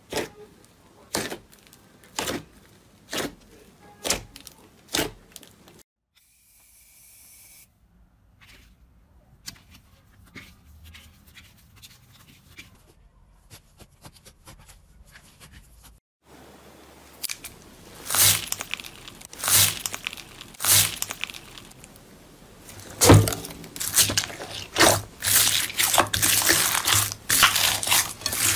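Hands pressing, poking and kneading slime: sticky clicks and pops, about one a second for the first five seconds, then fainter crackling, then a dense run of wet pops and squishes over the last ten seconds.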